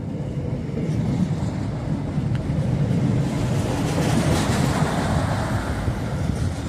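DB Class 628 diesel multiple unit passing close by and pulling away: a low diesel engine rumble with wheel and rail noise, loudest as the cars go by about four seconds in, then easing off.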